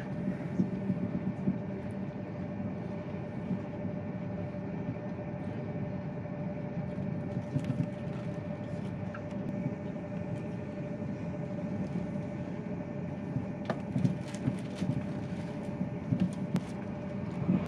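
Cabin noise inside a Thalys high-speed train under way: a steady low rumble with a constant hum. A few light clicks and knocks come through, more of them in the last few seconds.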